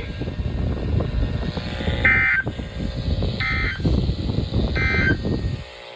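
Weather radio sending the EAS end-of-message data bursts after a tornado warning: three short, buzzy digital warbles about 1.4 s apart, heard through the radio's speaker. They sit over a low rumbling noise that cuts off just before the end.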